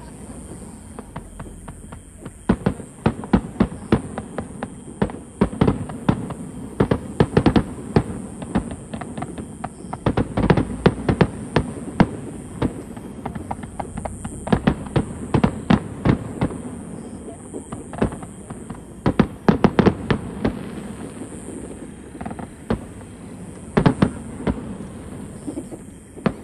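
Fireworks display: aerial shells going off in quick volleys of sharp bangs, with short lulls of a second or two between volleys.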